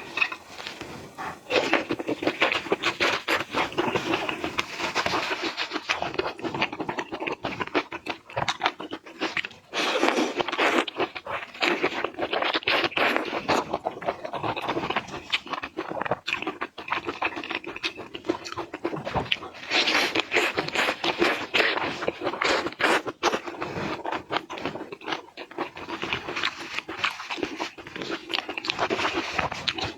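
Close-miked eating of seafood: steady crunching and chewing, a dense run of crisp clicks and wet crackles.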